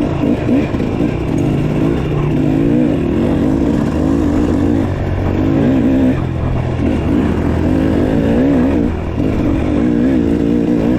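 Dirt bike engine running hard on a trail, its pitch rising and falling over and over as the throttle is opened and closed. Near the end comes one quick, sharp rev.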